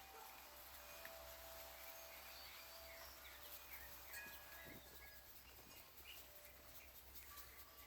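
Faint backyard ambience: small birds chirp on and off over a steady low hum.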